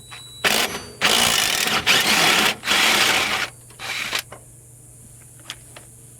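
Handheld power driver running in four bursts, the longest about one and a half seconds, as it backs bolts out of the bus bulkhead.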